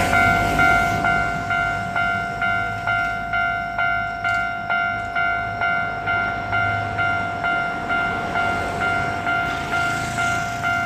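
Japanese level-crossing warning bell ringing in an even rhythm, about two strikes a second, over the low rumble of a Hankyu Takarazuka Line train running past.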